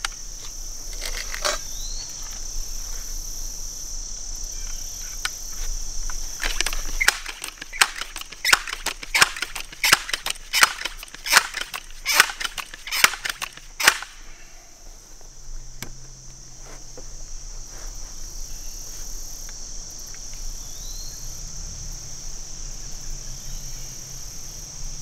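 Benjamin 392S .22 multi-pump pneumatic air rifle being pumped: a run of about a dozen sharp clacks from the pump lever, roughly one and a half a second, starting about seven seconds in and stopping about seven seconds later. Insects keep up a steady high drone throughout.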